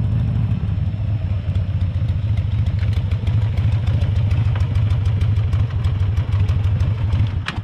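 Harley-Davidson Sportster's air-cooled V-twin rolling up slowly and idling with a loud, pulsing low rumble, then cut off near the end.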